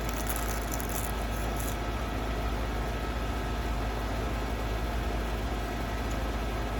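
A steady low mechanical hum with a few faint steady tones in it, under light crisp crackling in the first two seconds as a thin roasted seaweed snack sheet is bitten.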